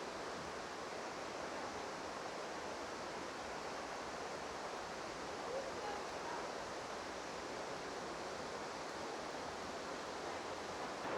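Steady, even rushing noise, like running or falling water, with no distinct events in it.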